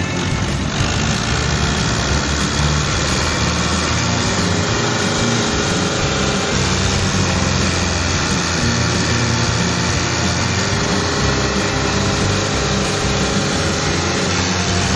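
Fiat 640 tractor's four-cylinder diesel engine running hard under heavy load, pulling a fully loaded sugarcane trolley; the engine sound is loud and steady.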